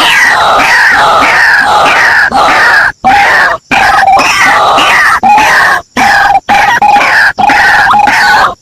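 Loud, harsh bird squawking: many short calls sweeping downward in pitch, cut off abruptly several times.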